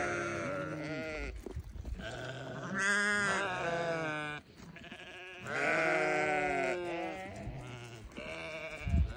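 Sheep bleating: about four wavering calls, each about a second long, with short pauses between them.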